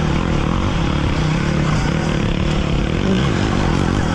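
Steady rush of wind and trail noise from an electric Surron dirt bike ridden at speed over dry dirt and grass, with a low motor drone underneath.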